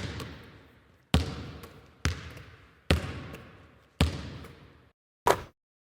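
A basketball bouncing slowly, about once a second, each bounce a sharp smack followed by a long echo that fades away, as in a large gym; a sixth bounce near the end is cut short.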